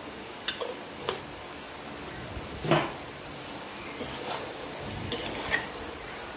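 Perforated metal spatula stirring chicken pieces in a kadai, scraping and clinking against the pan a handful of times, loudest about two and a half seconds in, over a faint sizzle.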